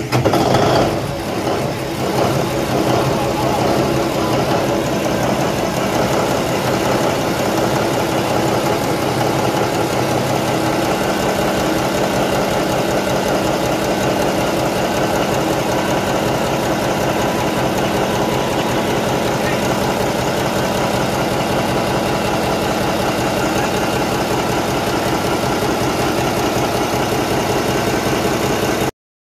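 Ship's port main engine, a large inline marine diesel, running on a test run. It is loudest in the first second, then settles into a steady, even firing rhythm.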